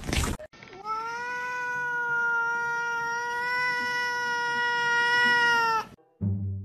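A domestic cat holding one long, drawn-out meow at a steady pitch for about five seconds, which then cuts off abruptly. A brief noisy burst comes just before it at the very start.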